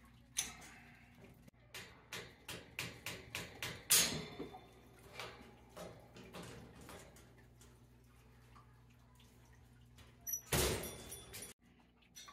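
Clicks and metallic knocks from a metal bird cage's frame and caster wheel being worked on by hand, several a second, the loudest about four seconds in. Near the end comes a louder noisy sound lasting about a second.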